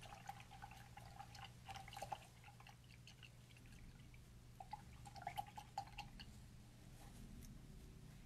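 Paintbrush swished and tapped in a plastic cup of rinse water: faint little splashes and clinks against the cup, in two short spells.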